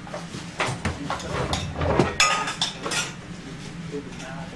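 Kitchen utensils knocking and clinking against pans and plates: a string of sharp knocks and clicks, busiest around two seconds in, with one short ringing clink just after, over a steady low hum.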